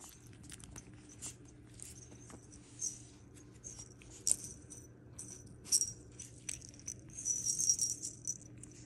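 Small jingle bell on a feather wand toy jingling in irregular short bursts as a puppy chews and tugs it, over a faint steady low hum.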